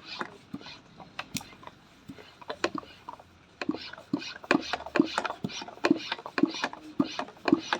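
Handheld spray bottle squirting water onto soil substrate, a string of short bursts that gets busier about three and a half seconds in.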